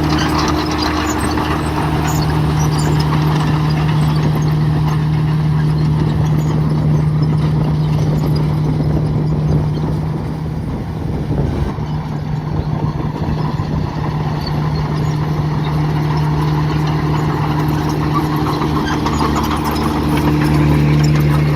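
Heavy diesel engine of construction machinery running steadily at a constant speed, dipping a little in level about halfway through.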